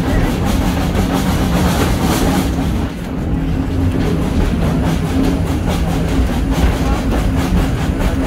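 1927 SACM 040 T steam tank locomotive running uphill under load, heard from the open coach right behind it. Its steady working noise mixes with the wheels on the rails.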